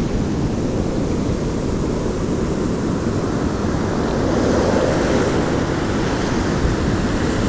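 Ocean surf washing steadily, with a low rumble of wind on the microphone.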